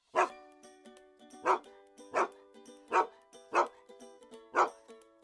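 Music with dog barks: six single barks spaced unevenly, with sustained musical notes ringing between them.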